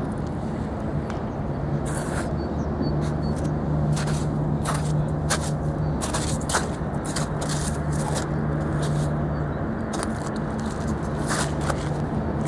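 Irregular crunches, scrapes and clicks of feet and a mountain bike moving over icy ground, over a steady low hum.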